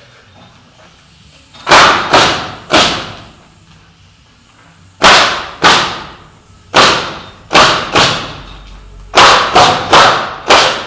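Pneumatic coil nailer firing nails into a wooden pallet: twelve sharp shots, three in quick succession, then after a pause of about two seconds a run of nine. Each shot has a short echo.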